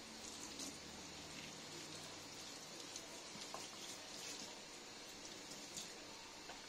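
Tap water running into a stainless steel sink, splashing off a pot and over the drain strainer as a steady faint hiss, with a few small drips and ticks.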